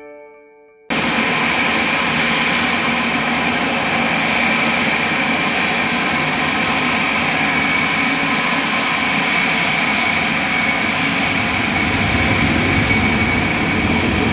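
Jet airliner engines running loud and steady, a high whine over a broad rushing noise, cutting in abruptly about a second in. The low rumble grows a little near the end.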